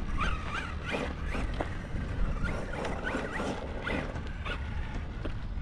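Electric RC truck's brushless motor giving short rising and falling whines on light throttle, with tyres crunching over gravel. The battery has dropped to low-voltage cutoff, so the speed control is holding power back.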